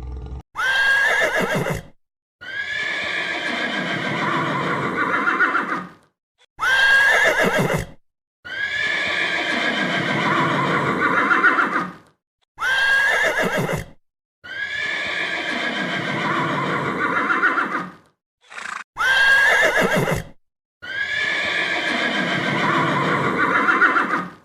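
Horse whinnying: the same call, a short burst followed by a longer one, repeated four times about every six seconds.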